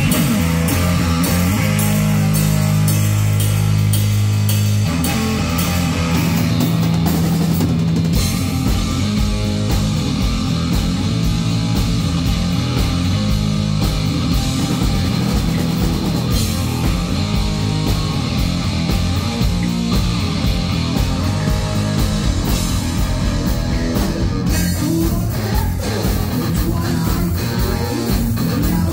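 Heavy metal band playing live: distorted electric guitars, bass and drum kit. A low chord rings out for the first few seconds, then the band kicks into a driving riff with drums from about five seconds in.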